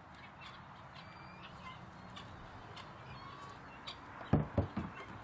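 Faint bird chirps now and then over a low background hum. About four seconds in come a few short, dull knocks close by.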